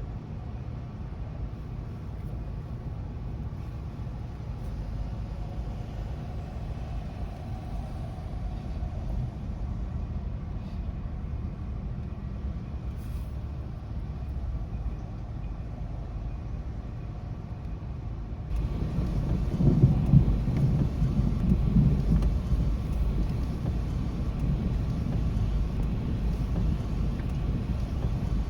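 Thunder rumbling low and continuously, swelling louder about two-thirds of the way through.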